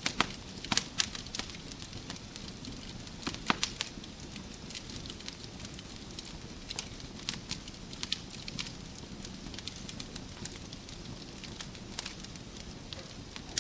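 Wood fire burning in a fireplace: a steady low rush of flames with irregular sharp crackles and pops, several louder pops near the start.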